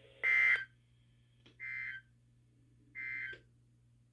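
EAS end-of-message (EOM) signal from a NOAA Weather Radio broadcast: three short bursts of two-tone digital data, about a third of a second each and roughly 1.3 seconds apart, the first loudest. It marks the end of the alert message.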